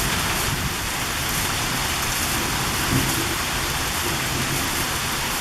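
Heavy rain pouring down steadily, with a low rumble underneath.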